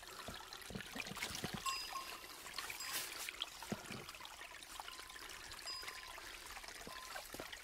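Small creek trickling over stones, faint and steady, with scattered light crunches of footsteps on the wet gravel.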